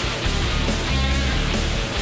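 Background rock music with electric guitar, with held bass notes changing about every half second.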